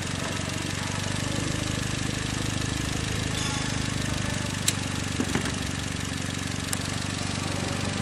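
Skoda Octavia's 1.8 TSI turbocharged four-cylinder (EA888) engine idling steadily, started to check whether an ignition coil swap has cured a misfire. Two sharp clicks come about two seconds apart near the middle.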